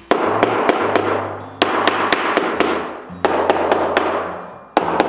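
Claw hammer striking a wooden window stool: four hard blows about one and a half seconds apart, each echoing as it fades, with lighter taps between, knocking down a spot where the stool sits high in the middle. Quiet background music with low notes underneath.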